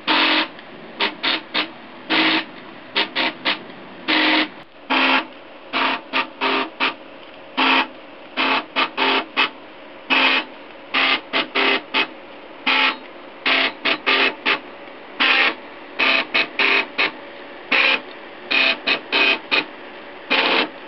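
Stepper motors of a 3DDIE 3D printer buzzing in short, irregular bursts as the print head and gantry move while printing, with a faint steady hum between moves.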